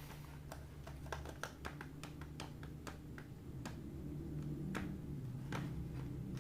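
Hands handling toy packaging and small plastic finger puppets, making a string of irregular small clicks and taps over a low steady hum.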